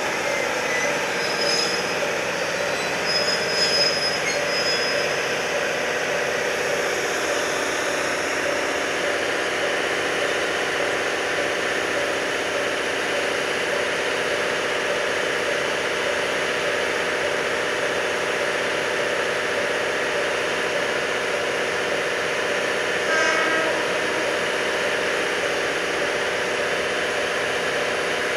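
Diesel railway engines idling steadily: a constant drone and hiss with a faint regular pulse. A brief higher-pitched sound about 23 seconds in.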